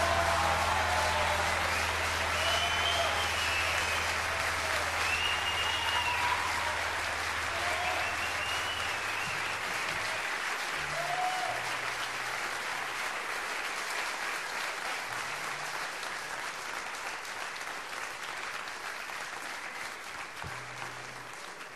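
Audience applauding after a song ends, the clapping slowly fading away. A low steady tone lingers underneath for the first nine seconds or so.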